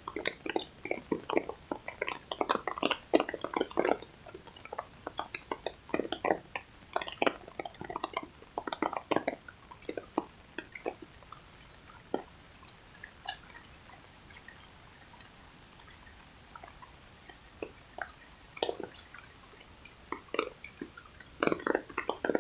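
Water dripping and splashing in irregular drops over a faint hiss of rain. The drops are busy at first, thin out to a few scattered ones for several seconds, then pick up again near the end.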